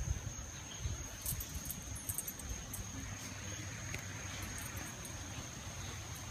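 Insects chirring in one steady, unbroken high-pitched tone, over a low rumble and a few faint ticks.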